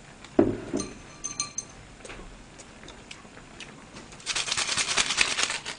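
A knock and ringing clinks of tableware being handled, then about a second and a half of dense crackling rustle near the end.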